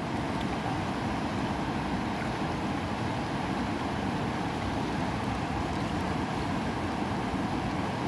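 Steady rushing of a river flowing over stones, with a few faint clicks as the Nikon D500's command dial is turned to change the shutter speed.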